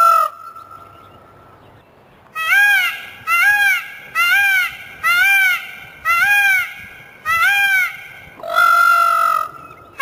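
Peacock (Indian peafowl) calling loudly: a short honking call at the start, then after a pause a quick run of about seven short rising-and-falling calls less than a second apart, and one longer drawn-out call near the end.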